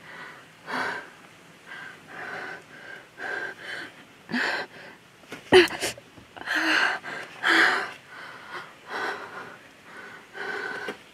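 A person gasping in short, ragged breaths, dazed and hurt after a car crash. The breaths come about once a second, with a sharp catch of breath about halfway through, the loudest moment.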